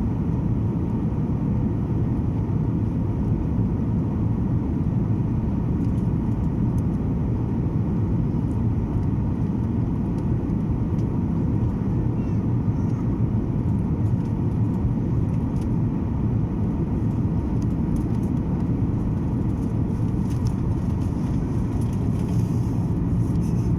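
Steady engine and airflow noise heard inside the cabin of a Boeing 737 MAX 8 airliner in flight, a low even rumble with a faint steady hum.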